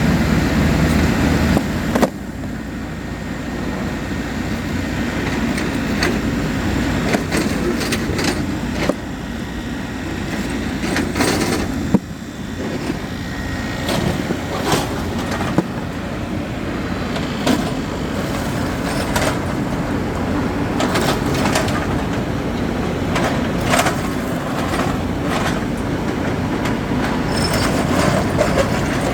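Heavy construction machinery running steadily with a low rumble, with irregular sharp knocks and clanks throughout; the rumble drops a little after a loud knock about two seconds in.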